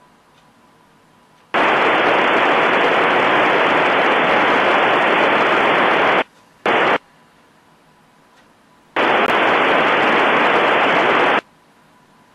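Radio receiver on the space station's FM downlink giving loud, band-limited static hiss that switches on and off abruptly: a long burst, a short one, and another long one, with faint hiss in between. The static comes as the signal from the station drops out or stops between transmissions.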